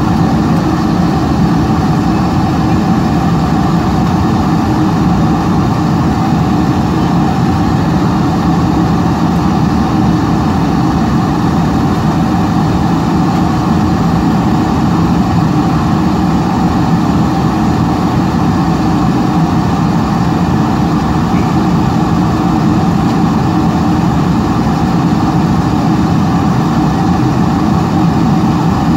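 Steady cabin drone inside a Boeing 747-400ER in flight, from its engines and the rush of air, heard from a window seat over the wing. The noise is constant, with no change in level.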